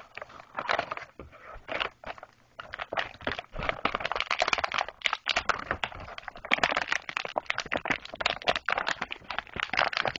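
Clear plastic blister packaging handled and pulled apart by hand: a dense run of crackles and crinkles that gets busier about four seconds in.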